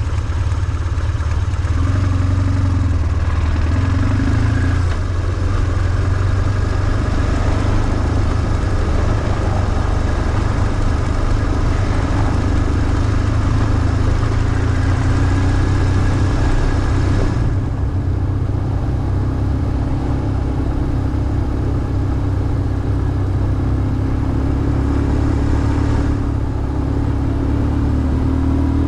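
BMW R1150GS's flat-twin boxer engine running while the bike is ridden, its note rising and falling with the throttle. The higher hiss of wind and road drops away for several seconds past the middle, then comes back.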